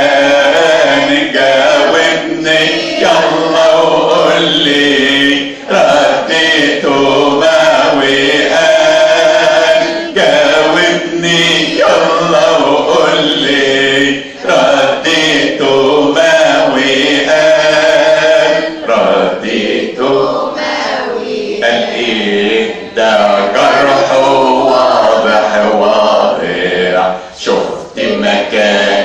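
A hymn sung by a group of voices together, with a man's voice among them, in long held phrases broken by short pauses.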